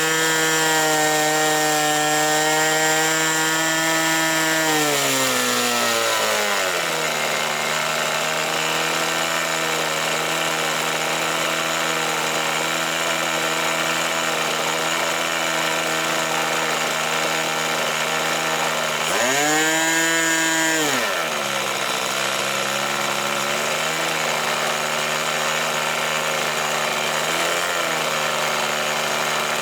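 Model airplane engine running steadily at a high pitch, then dropping to a lower speed about five seconds in. Near the middle it revs up sharply once and falls back, with a few small blips of throttle after.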